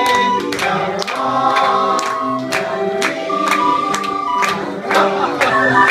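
Hand-cranked barrel organ playing a tune, its pipes sounding held chords and a melody. Hand claps keep time with it, about two to three a second.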